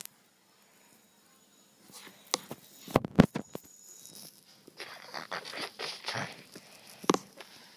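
Close-up handling noise: scattered knocks and thumps with rustling and scuffing against fur and a wooden floor, the loudest knock about three seconds in, after a brief dead silence at the start.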